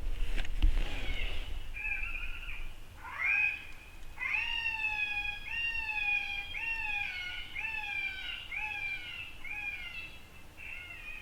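A predator call playing a distress sound: a string of short wailing cries, each falling in pitch at its end, about one every 0.7 seconds, growing fainter toward the end. A thump comes near the start.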